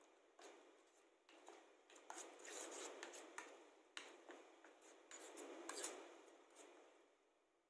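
Faint kitchen handling sounds: scattered light clicks and soft scraping and rubbing as ingredients and utensils are handled, with two slightly louder scraping stretches, about two and a half seconds in and again near six seconds.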